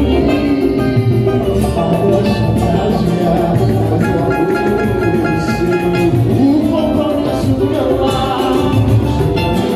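Live samba pagode band playing: banjo, cavaquinho, guitar, saxophone, pandeiro and congas in a steady samba groove, with a male voice singing.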